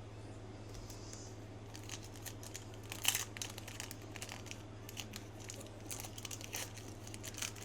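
Foil wrapper of a Pokémon trading card booster pack crinkling and tearing as it is opened, a run of irregular sharp rustles, loudest about three seconds in.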